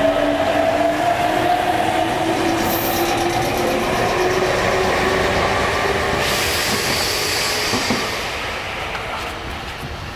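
Meitetsu electric train running at the elevated platform: a whining tone that shifts in pitch over rail and wheel noise. A hiss starts about six seconds in, and the sound grows quieter over the last two seconds.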